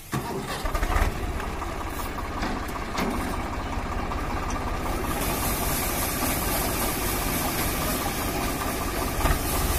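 Swaraj 744 FE tractor's diesel engine running steadily, driving a paddy-cleaning machine whose shaking sieve rattles with a few clicks. About halfway through, a steady high hiss joins as paddy pours through the machine.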